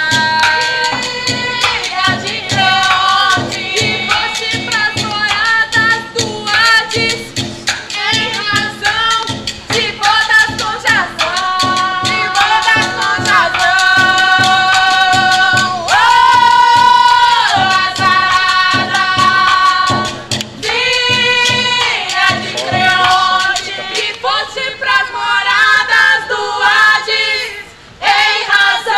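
Women singing a chant over a steady beat struck on a large metal barrel played as a drum. The beat drops out about 24 seconds in while the singing goes on.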